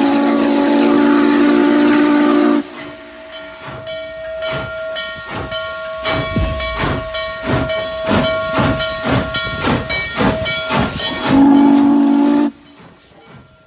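Norfolk & Western J-class 611 steam locomotive passing. It blows a loud, steady chime whistle, then its exhaust beats about three times a second, growing louder as it nears. Near the end it gives one more short whistle blast.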